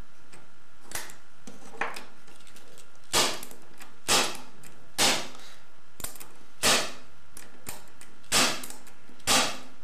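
Asec bump key in a cylinder lock being hit repeatedly with a bump hammer to jump the pin tumblers and bump the lock open: about ten sharp taps, roughly one a second, the later ones louder.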